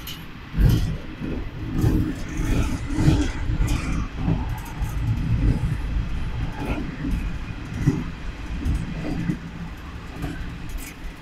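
A Yodo Line diesel railcar running along the track, heard from its rear car: a continuous low rumble of wheels and engine with irregular knocks and rattles.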